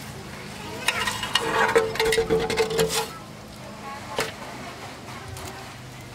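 A corrugated sheet being dragged aside over dry leaves and palm stems: a burst of rustling and scraping, with a steady scraping tone, from about one to three seconds in. A single sharp knock follows about four seconds in.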